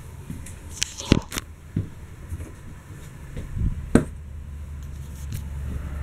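Footsteps and handheld camera handling noise over a steady low rumble, with a few sharp clicks and knocks about a second in and again near four seconds.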